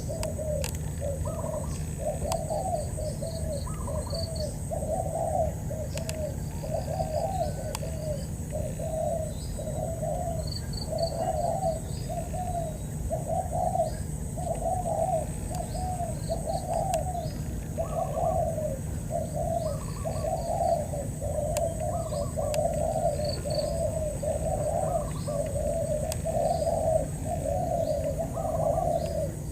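Spotted doves cooing back and forth, one phrase after another with hardly a pause, with small birds chirping high above them.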